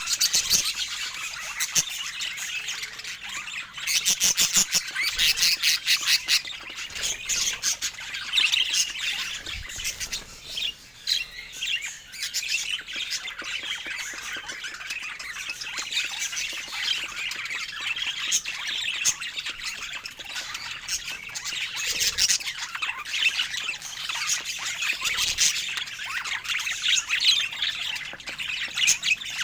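Budgerigar chatter: a busy, continuous stream of chirps, warbles and harsh squawks.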